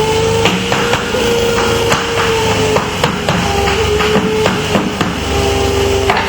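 Hammer tapping repeatedly, roughly two irregular taps a second, knocking a window's glazing bead into place. A steady hum runs underneath.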